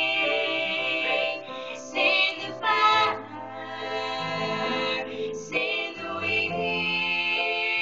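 A young voice singing a slow song over a musical backing, holding long notes with short breaks between phrases.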